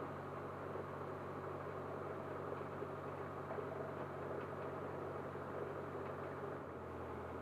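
Cessna 152's four-cylinder Lycoming O-235 engine running steadily at low power on the ground, heard from inside the cockpit. Its tone shifts slightly near the end.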